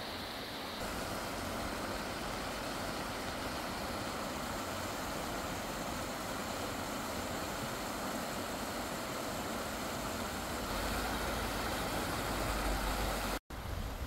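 Steady rushing of a mountain stream flowing over rocks. A low rumble joins near the end, and the sound cuts out for an instant just before the end.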